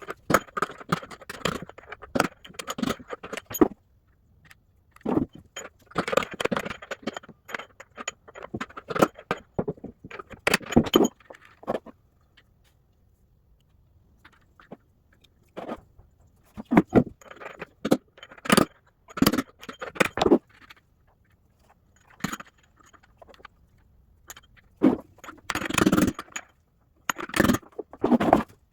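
Hammer striking a steel punch to drive the worn drum bearings out of an LG front-load washer's tub: sharp metal-on-metal blows with clinking and scraping between them. The blows come in irregular runs, with a pause of a few seconds near the middle.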